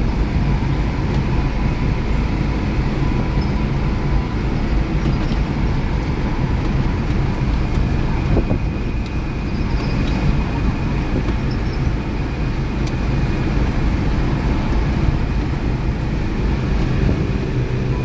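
Steady engine and road noise of a songthaew, a pickup-truck shared taxi, driving along a highway, heard from inside the vehicle.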